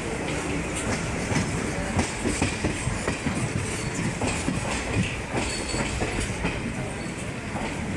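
Indian Railways passenger coach rolling along the track, heard from its open doorway: a steady rumble with irregular clattering knocks of the wheels on the rails.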